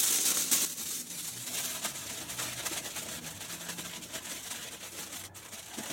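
Aluminium foil being crumpled and pressed into a cooking pot: dense crinkling, loudest in the first second, then softer.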